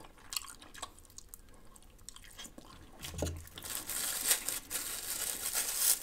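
Soft chewing and wet mouth clicks, then, from about three and a half seconds in, the dense crinkling of a disposable plastic spoon's cellophane wrapper being torn open.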